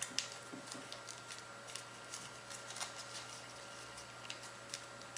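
Faint, scattered crackles and ticks of origami paper being folded and creased by hand.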